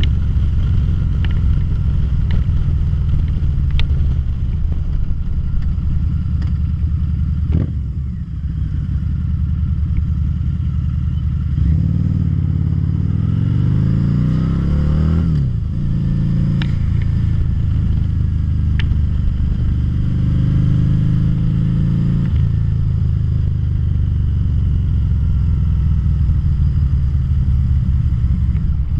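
2013 Harley-Davidson V-Rod Muscle's liquid-cooled V-twin engine running under way. The engine note dips about seven seconds in, then rises steadily from about twelve seconds in and falls away suddenly at about fifteen seconds, as the bike accelerates and shifts.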